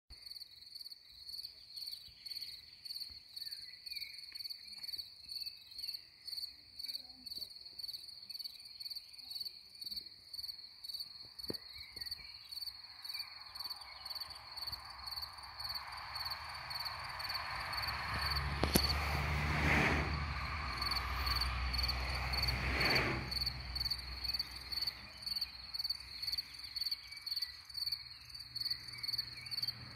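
A cricket chirping in a steady rhythm, about three high chirps a second. Midway a rushing noise with a low rumble swells and fades over about ten seconds, with two sharp clicks in it.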